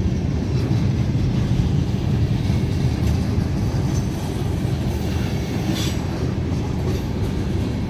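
Freight train cars rolling past on the rails, a steady heavy rumble of wheels on track.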